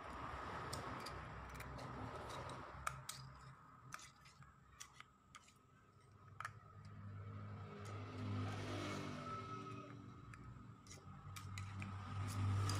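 Light metallic clicks and scrapes of a small steel pick working in the centre bore of a scooter's CVT pulley. A low engine hum runs underneath and grows louder in the second half.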